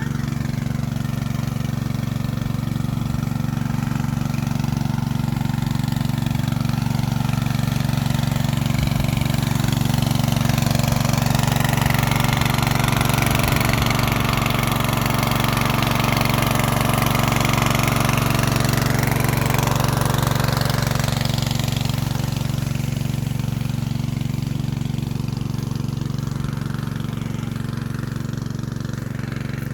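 An engine running steadily with a low hum, growing a little louder toward the middle and easing off again after about 20 seconds.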